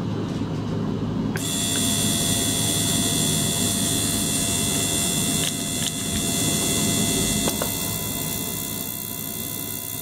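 Small circulation pump and tabletop ultrasonic cleaner running with water churning in a glass jar, a steady low hum. About a second and a half in, a higher hiss with steady whining tones joins and holds.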